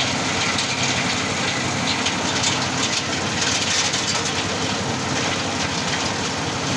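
Engine-driven areca nut peeling machine running steadily, its engine noise mixed with a dense, fast rattle.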